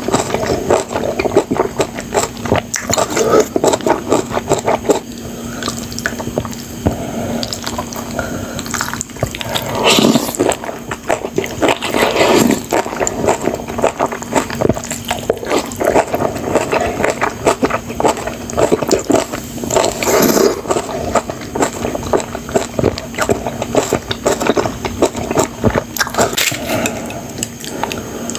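Close-miked eating of spicy, sauce-coated instant noodles: continuous wet chewing, smacking and slurping, with a few longer, louder wet sounds about ten, twelve and twenty seconds in.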